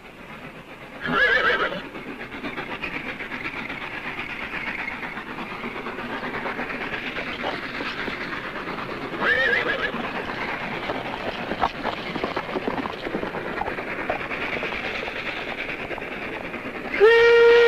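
Horses whinnying over the steady rumble and clatter of a passing train, with a whinny about a second in and another about halfway. Near the end a train whistle blows, loud and held on one note; it is the whistle that spooks the horses.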